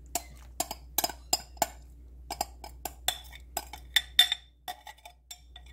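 Spoon clinking and knocking against a glass bowl while scraping a thick salsa, bean and corn mixture out of it: a quick, irregular run of sharp clicks, some ringing briefly.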